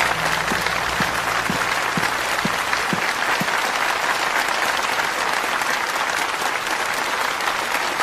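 Audience applauding steadily: the dense, even clatter of many hands clapping.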